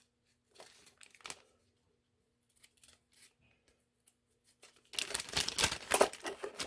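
A few light rustles and clicks of packing handling, then near quiet, then from about five seconds in a quick run of loud clinks as the clamp kit's plates are picked up and knock against each other.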